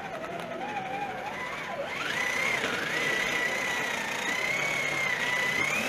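Radio-controlled model tank's drive whining as it crawls forward; the whine jumps up in pitch about two seconds in and holds high, wavering slightly.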